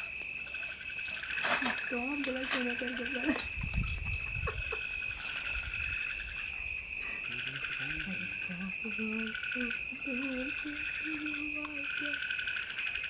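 Night chorus of crickets and frogs: a steady high insect trill with repeated pulsing calls about a second long, and a few lower croaking calls.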